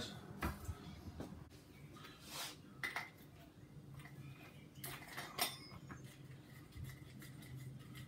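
A handful of short, sharp clinks and knocks from hand tools and wheel parts being handled on a workbench while a wheel is taken off an Arrma Kraton 6S RC car's front hub.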